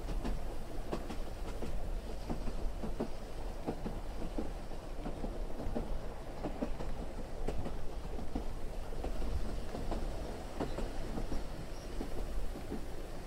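Steady low rumbling noise with many scattered, irregular clicks and knocks.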